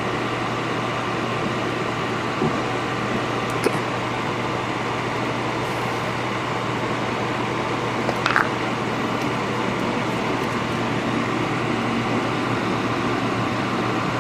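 Steady air noise from a running fan with a constant low hum, joined by a few light clicks and taps of metal tools, one a couple of seconds in, one near four seconds and a small cluster about eight seconds in.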